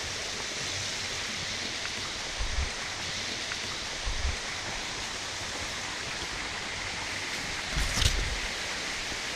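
Steady rush of flowing water, broken by three brief low thumps, the last about eight seconds in with a sharp click.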